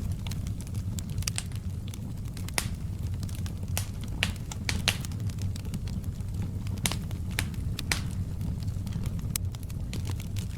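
Wood fire burning in a fireplace: a steady low rumble of the flames with irregular sharp crackles and pops, a few of them loud.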